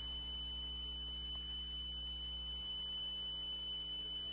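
Steady 3,000 Hz test tone played from an RCA wow-and-flutter test cartridge in an Akai 8-track deck, used to check the deck's tape speed, over a low electrical hum.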